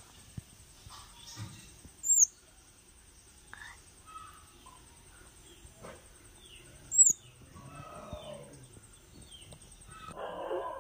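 Two sharp, high chirps from a bird at a grass nest, each sliding downward in pitch, about five seconds apart. Fainter scattered bird chirps and a steady high trill run underneath.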